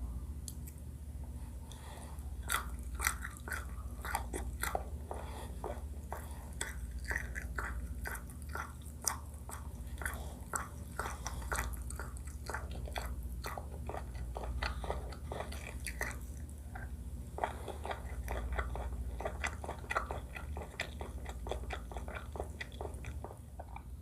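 Close-miked chewing of rice, chicken coconut curry and sweet shrimp: rapid wet mouth clicks and smacks, with a short pause about two-thirds of the way through. A steady low hum lies underneath.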